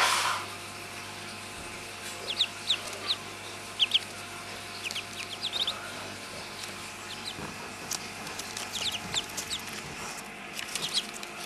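Ducklings peeping: short, high, sharp calls scattered in small clusters. A brief loud noisy burst comes right at the very start.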